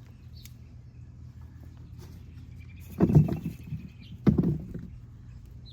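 Two loud bursts of rustling and scraping, about a second apart, as potting soil and potatoes are handled in a bin. A thin high tone sounds between them.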